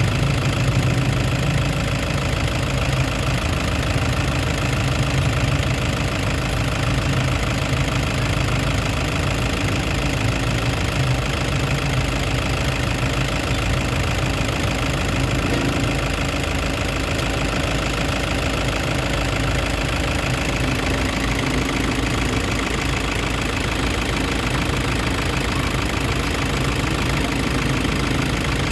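Toyota HiAce engine idling steadily, its low hum easing off a little about halfway through.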